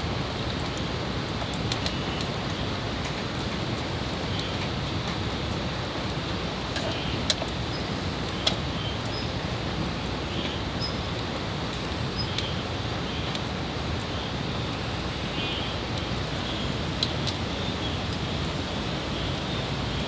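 Wood fire crackling in a small fire-pit grill, with scattered small clicks and a couple of sharper pops about a third of the way in, over a steady outdoor hiss.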